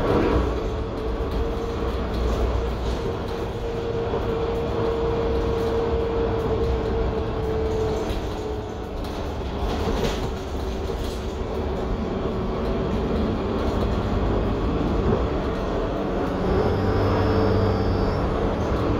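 2021 Gillig Low Floor 40 ft transit bus under way: its Cummins L9 six-cylinder diesel and Voith automatic transmission running with a low rumble. A steady whine holds through the first eight seconds or so, then fades. A brief knock comes about ten seconds in.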